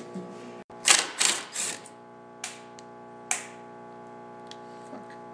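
Sharp clacks and knocks of a Ryobi router being handled and set onto a metal hinge-mortising template: a quick cluster about a second in, then two single knocks. A steady hum lies underneath.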